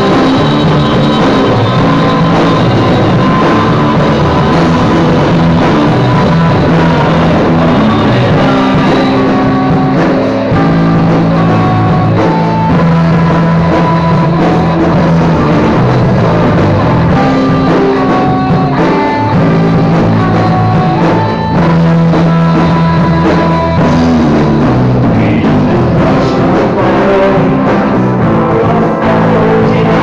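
Rock music with drum kit and electric guitar, the guitar playing melodic lines over the band without a break.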